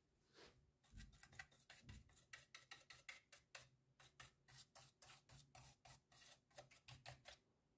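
Small brush scrubbing built-up dust off a laptop cooling fan's blades and housing. It makes a faint, quick run of short scratchy strokes, about four or five a second, starting about a second in and stopping shortly before the end.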